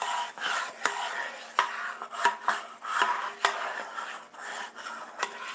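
Metal fork scraping and tapping in a microwave grill dish, stirring raspberry vinegar into the duck fat and juices. Irregular scrapes with a few sharp clicks.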